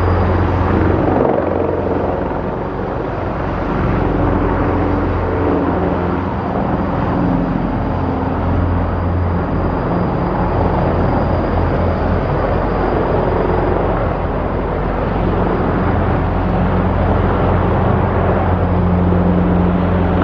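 Large twin-turbine military transport helicopter flying low nearby: a steady, heavy rotor sound with a thin, high turbine whine over it.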